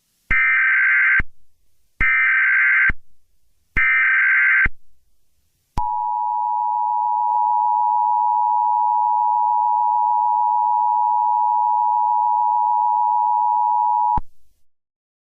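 Emergency Alert System broadcast tones: three short bursts of the buzzy SAME digital header, each under a second, then the two-tone EAS attention signal (853 and 960 Hz together) held steady for about eight seconds before cutting off. This is the standard opening of an emergency alert.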